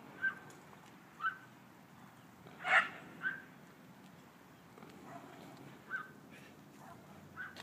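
A dog barking in short, scattered barks, about six in all, the loudest about three seconds in.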